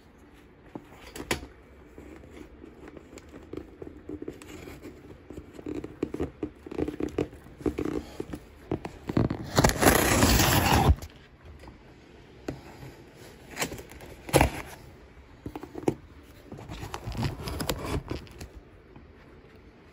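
Cardboard shipping box being handled and shifted: scraping and rustling with a few sharp knocks, and a loud rough scraping noise lasting about a second and a half near the middle.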